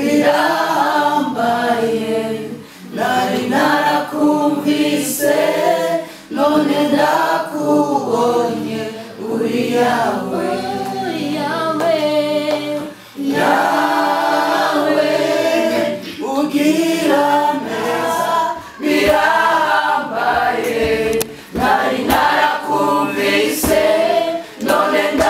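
A small group of men and women singing a Kirundi worship song together in harmony, with no instruments heard. The singing comes in phrases with brief breaks for breath.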